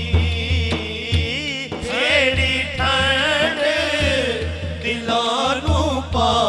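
Male voices singing a wavering, ornamented Punjabi devotional melody (a kalam in naat style) over deep beats of a large hand-played bass drum.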